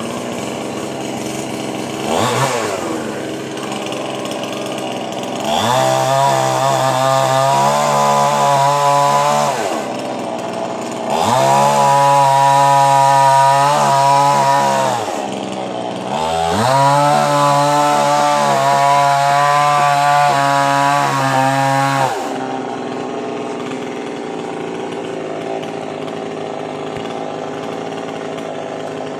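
Two-stroke chainsaw run up to full speed three times, each spell lasting about four to six seconds, dropping back to idle in between and from about 22 seconds in. This is the saw at work cutting a coconut palm.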